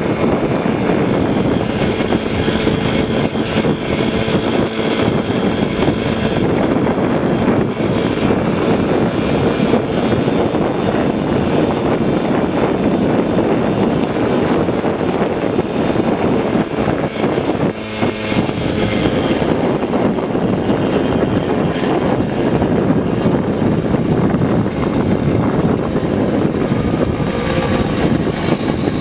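1980 Puch Maxi moped's 49cc single-cylinder two-stroke engine running steadily under way, mixed with wind rush. The level dips briefly about two-thirds of the way through.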